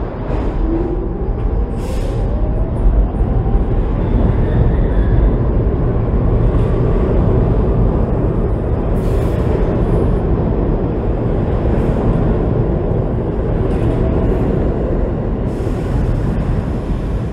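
New York City subway train pulling out of an underground station: its motors whine upward in pitch as it gets moving, then a loud, steady rumble and rattle of the cars running past, with several sharp clanks along the way.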